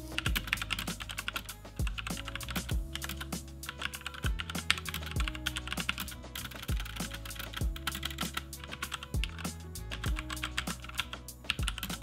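Fast typing on a HyperX Alloy Elite mechanical keyboard with clicky Cherry MX Blue switches: a dense, continuous run of key clicks. Background music with a bass line plays underneath.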